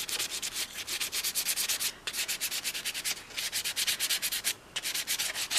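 Sandpaper rubbed by hand over a doll head coated in filler, in quick back-and-forth rasping strokes about eight a second with a few brief pauses. The built-up filler layer is being sanded smooth before painting.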